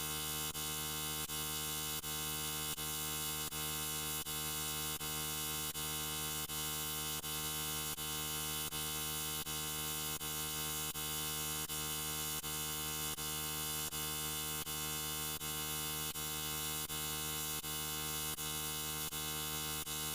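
Steady electric buzz sound effect, a dense stack of tones like a mains hum. It is broken by a brief dip or click about every three-quarters of a second, like a short loop repeating.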